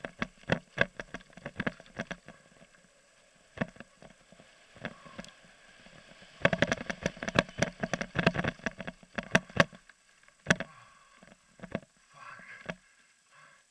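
Mountain bike rattling over a rough, rocky dirt trail: a quick run of sharp knocks and clatter from the tyres, chain and frame hitting stones, densest from about six to ten seconds in, with a sparser stretch before it.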